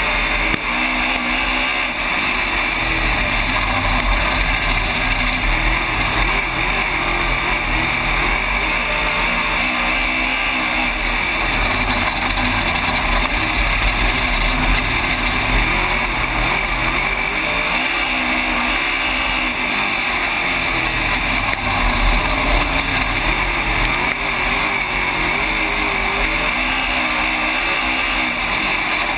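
Dirt-track race car's engine running hard at racing speed, heard from inside the cockpit. Its pitch rises and falls again and again as the throttle is worked around the track, over a steady rushing noise.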